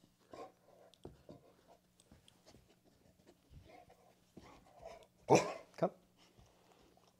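Pit bull-type dog giving two short, loud vocal bursts about half a second apart, a little after five seconds in, with soft shuffling sounds around them.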